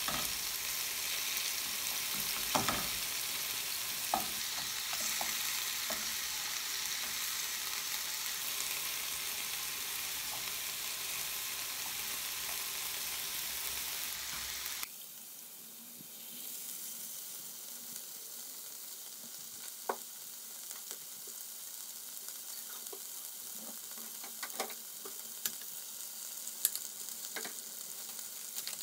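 Chopped vegetables sizzling in a frying pan as they are stir-fried with chopsticks, with short clicks of the chopsticks against the pan now and then. About halfway the sizzle drops suddenly to a quieter level.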